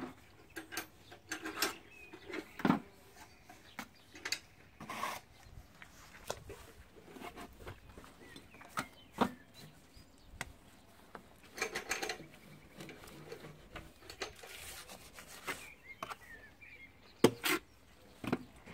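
Intermittent scraping and rubbing with scattered sharp knocks from hand tools at work, irregular and short, with a few louder knocks near the end.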